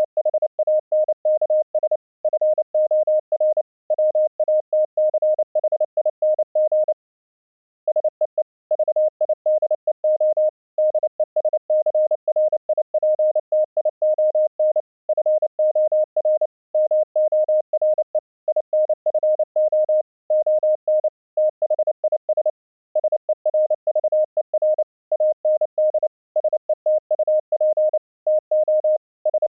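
High-speed Morse code: a single-pitch tone keyed rapidly on and off, with short gaps between words and a longer pause about seven seconds in.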